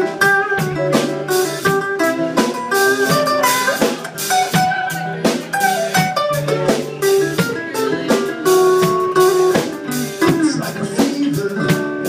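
Live band playing an instrumental break between sung verses: a guitar plays a lead melody of quick single notes over a steady drum kit beat.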